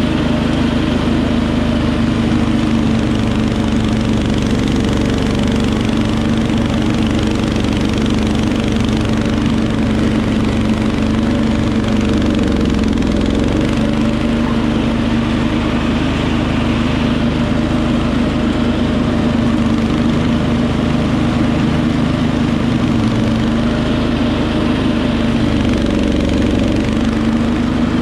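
Wheel Horse 310-8 garden tractor's single-cylinder Kohler engine running steadily while driving its front-mounted snowblower through heavy, wet snow. The engine note sags briefly twice under the load, about halfway through and again near the end.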